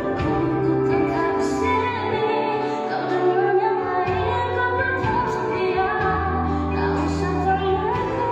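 A woman singing a slow song into a microphone, backed live by a band with electric bass and guitar, all amplified through the stage PA during a sound check. Deep sustained bass notes change every second or two beneath her voice.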